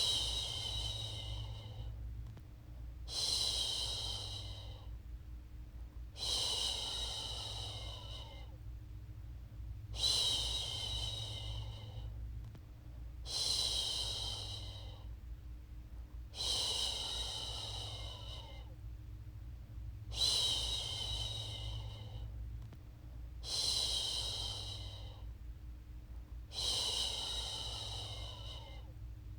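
A woman's voice shushing a baby: a long 'shhh', repeated nine times at a slow, even pace, one every three seconds or so. A steady low hum runs underneath.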